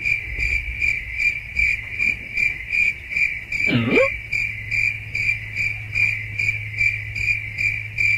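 A cricket chirping steadily, about three chirps a second, over a low hum. About four seconds in, a short sound slides down in pitch and back up.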